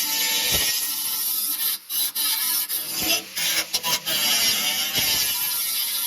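Metalwork on the thin steel of a snowmobile frame: a harsh, continuous hissing rasp, broken by several very brief pauses.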